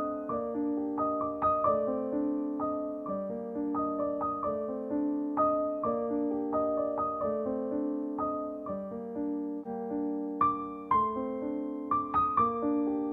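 Background piano music: a melody of struck notes that ring and fade, several a second, over lower held notes.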